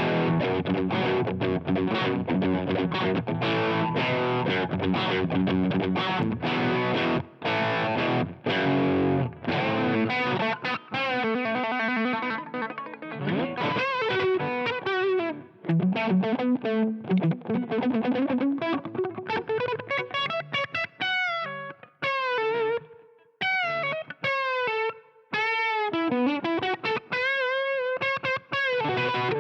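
Electric guitar through a Joyo Deluxe Crunch distortion pedal (an MI Crunch Box clone): crunchy, chopped rhythm chords for the first third, then a single-note lead line with string bends and vibrato.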